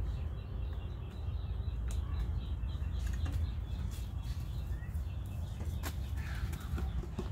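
Outdoor ambience: a steady low rumble with faint chirps and a few sharp clicks near the end.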